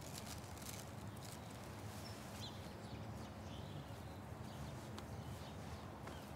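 Faint outdoor ambience: a low, steady background rumble with a few faint, short high chirps.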